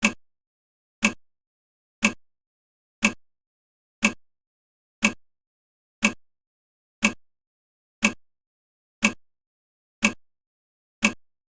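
Countdown timer's clock-tick sound effect: one sharp tick every second, each dying away quickly.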